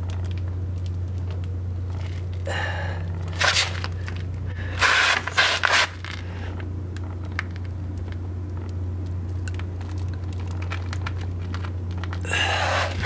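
Scraping and crunching noises in several short bursts with scattered clicks, over a steady low hum.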